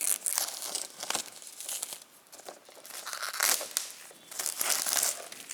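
Plastic shrink-wrap being torn and pulled off a sealed disc steelbook case, crinkling and crackling in uneven bursts.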